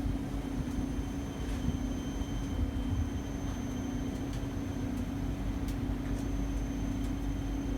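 Tree VMC1050 vertical CNC machining center jogging its Z axis, the head travelling up and down under servo power with the spindle not turning: a steady low hum with a few faint ticks.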